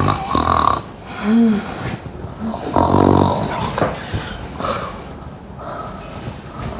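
A woman snoring loudly in several separate rough snores, the loudest about three seconds in.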